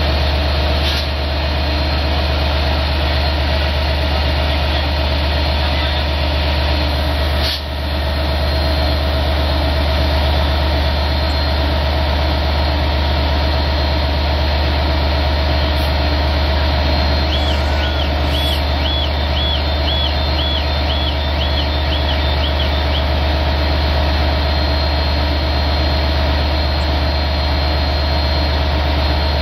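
DM30AC diesel locomotive idling as the train stands, a steady loud low hum with a held mid tone. A brief sharp knock cuts in about seven seconds in, and a quick run of about a dozen short high chirps comes later.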